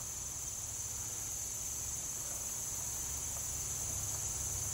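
Steady, high-pitched chorus of singing insects such as crickets, with no breaks.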